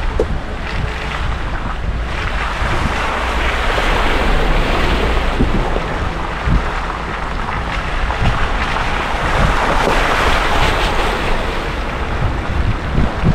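Wind buffeting the microphone with a heavy low rumble that eases about halfway through, over a steady rushing noise that swells and fades.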